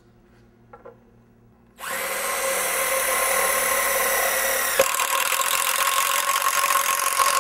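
A cordless impact driver starts up about two seconds in, driving a DeWALT Impact Ready hole saw as it cuts into metal. It runs with a steady high whine, and a sharp click about three seconds later shifts its tone.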